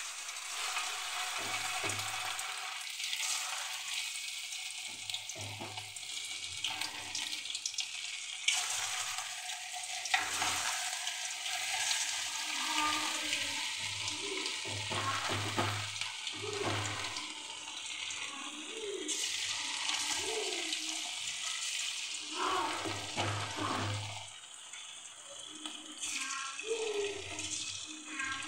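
Marinated chicken pieces deep-frying in hot oil in an aluminium kadai: a steady, dense sizzle, with a few sharp crackles as more pieces are dropped in by hand.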